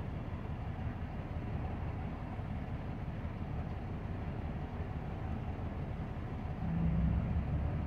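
Low, steady rumble of heavy diesel machinery, heard through a vehicle's closed window. It swells louder for about a second near the end, with a brief low hum.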